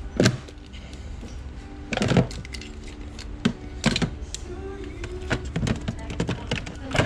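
Shop background music playing, with short rustles and clicks from a plastic bag and plastic toys being handled.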